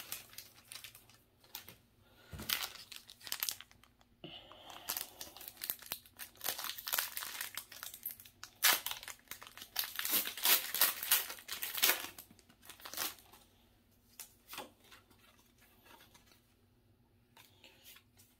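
Foil wrapper of a Pokémon trading card booster pack crinkling and tearing as it is opened, in a run of crackly bursts. Softer handling of the cards follows in the last few seconds.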